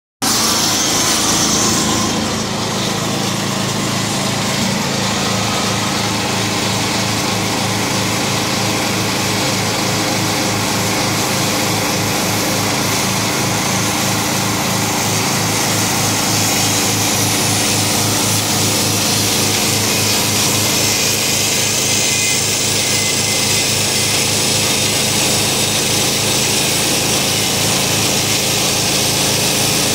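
Small DuroMax gasoline engine running steadily, driving the spinning cutter head of a homemade log planer as it cuts a notch along a log.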